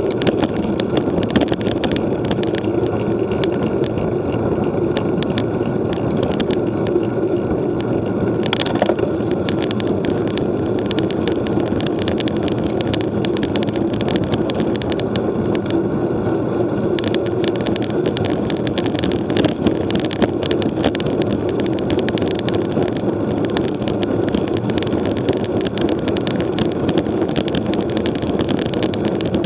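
Steady wind and road noise from a road bike ridden at speed, with many small clicks and rattles through it.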